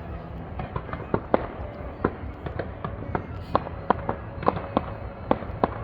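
Fireworks going off in a quick, irregular string of sharp pops and cracks, two or three a second, over a steady background rumble.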